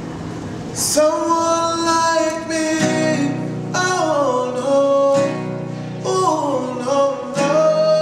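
A man singing long held notes that slide from one pitch to the next, accompanied by his own acoustic guitar. The voice comes in about a second in after a quieter guitar-only moment.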